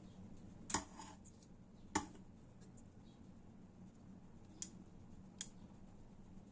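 Four short sharp clicks of a utensil against cookware or a dish, the first two louder, the first with a brief ring, over a faint steady low hum.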